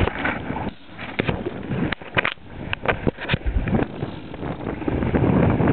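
Wind buffeting the microphone aboard a sailing trimaran. A cluster of sharp clicks and knocks from the camera being handled falls in the middle, and the wind noise rises again near the end.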